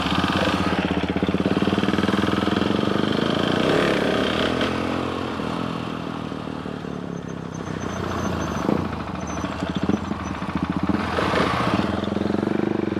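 Supermoto motorcycle engine running while riding, its pitch rising and falling with the throttle, with wind rushing over the microphone.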